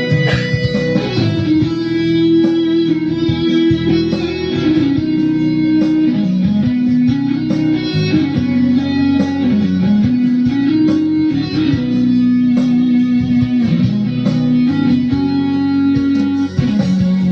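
Instrumental break in a Batak pop song, with a guitar carrying the melody in long held and sliding notes over a full band.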